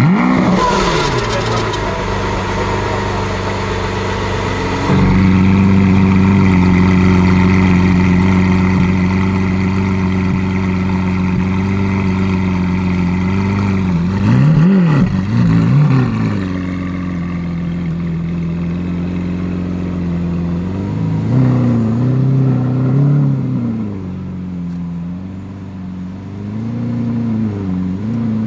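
Lamborghini Aventador S Roadster's 6.5-litre naturally aspirated V12 dropping from its start-up flare into a steady idle, with a short blip of the throttle about halfway through and two more later on.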